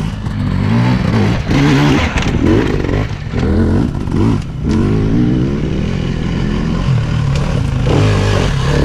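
Enduro dirt bike engines revving up and down as the bikes climb a rocky trail, the revs rising and falling repeatedly.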